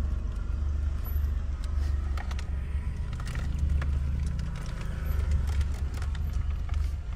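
Steady low rumble of a Peugeot 807 MPV driving, heard from inside the cabin, with many scattered light clicks over it.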